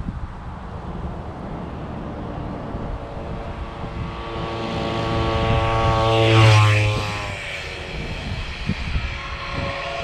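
Zenoah G43 two-stroke engine on a motorized bicycle passing by at about 25 mph. Its buzz builds as it approaches, is loudest as it passes about six and a half seconds in, then drops in pitch and fades as it moves away.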